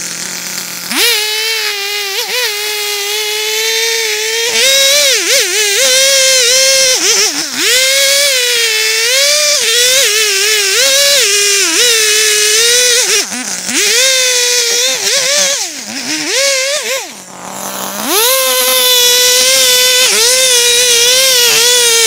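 Two-stroke chainsaw at full throttle felling a standing tree, cutting into the base of the trunk. The engine revs up about a second in, its pitch repeatedly dipping and recovering as the chain bites into the wood, then drops off briefly near the end before revving up again.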